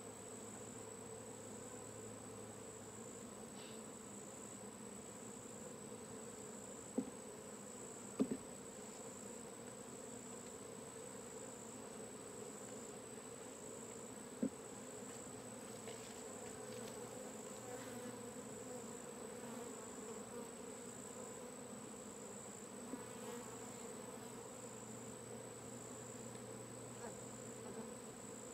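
Honeybee swarm buzzing steadily, the hum of many bees in flight, with three short sharp knocks in the first half.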